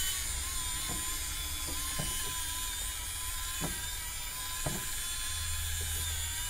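Hurricane Spin Duster, a battery-powered spinning dusting brush, with its small motor whirring steadily with a high whine as the rotating brush head sweeps across window-blind slats. A few light knocks come as it bumps the slats.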